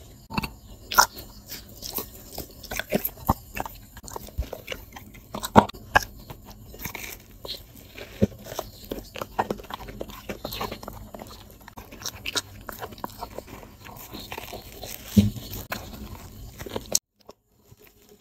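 A dog biting and chewing crusty bread, with irregular sharp crunches of the crust. The crunching stops abruptly about a second before the end.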